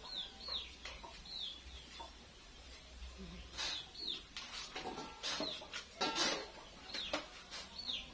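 Birds cheeping: short, high calls that fall in pitch, repeated at irregular intervals. A few sharp knocks from kitchen work come between them, the loudest about six seconds in.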